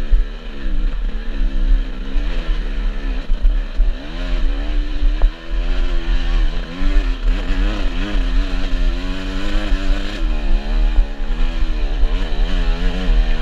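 Enduro dirt bike engine revving up and down again and again as the throttle is worked, its pitch rising and falling every second or so.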